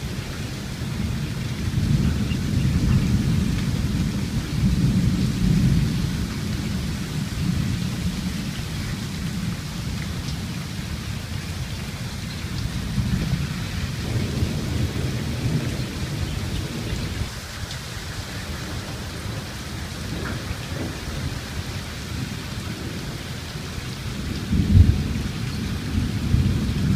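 Thunder rolling over steady rain, with the loudest rumble near the end.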